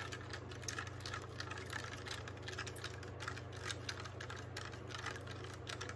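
A thin stirring stick clicking and tapping rapidly and irregularly against the sides of a plastic cup of water as granulated sugar is stirred in to dissolve.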